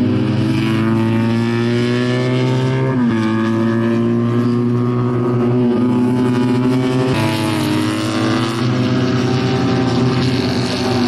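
Two-cylinder Fiat 500-based race car engines running hard at high revs, several at once, the pitch climbing under acceleration and dropping sharply about three seconds in and again about seven seconds in.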